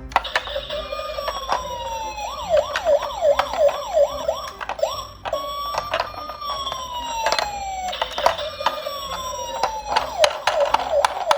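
Electronic toy siren from toy emergency vehicles: slow falling wails alternating with fast yelping sweeps, the pattern cycling over and over, with sharp clicks and knocks throughout.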